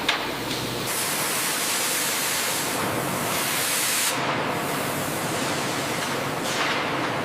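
Steady hissing noise from factory machinery, brighter and sharper for a few seconds after about one second in, with a light click at the very start.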